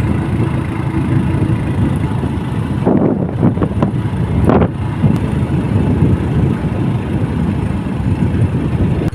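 Motorbike running along the road: a dense low rumble of engine and road noise, with a few brief swells about three to five seconds in.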